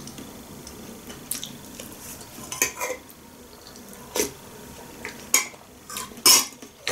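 A metal spoon clinking and scraping against a soup bowl during eating, several separate clinks a second or so apart.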